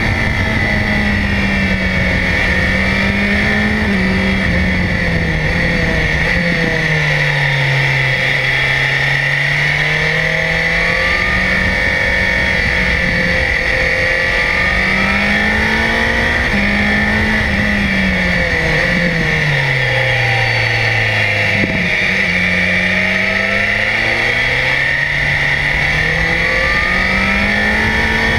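BMW S1000XR's inline-four engine heard onboard at riding speed, its revs climbing and falling with gear changes and dropping low twice before rising again. A steady rushing noise runs underneath.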